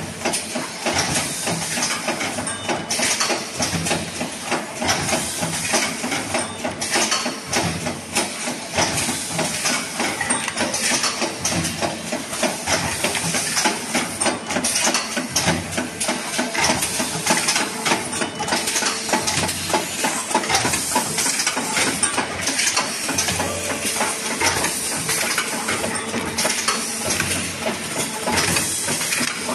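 JBZ-500E 30-ton hydraulic paper plate machine running: a steady hiss with a dense, rapid clatter and clinking of metal parts, over a faint steady hum.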